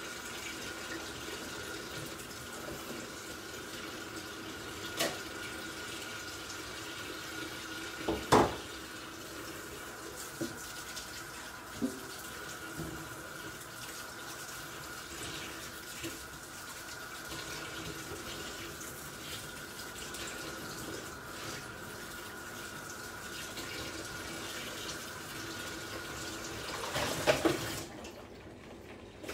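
Kitchen tap running steadily into a sink while mushrooms are rinsed under it, with a few knocks and one loud clunk about eight seconds in. After a brief clatter near the end, the water shuts off.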